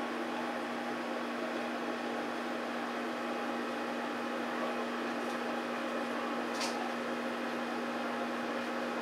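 A steady, unchanging hum over constant hiss, with no voices. One brief faint sharp sound comes about six and a half seconds in.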